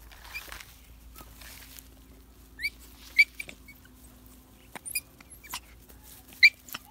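Several short, high-pitched squeaks from a puppy and kitten play-fighting, the loudest about three seconds in and again near the end, among light rustles and clicks.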